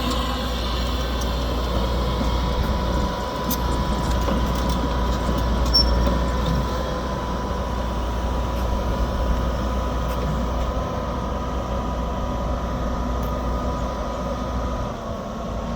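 Doosan DX225LC excavator's diesel engine running steadily: a low rumble with a thin, steady whine above it.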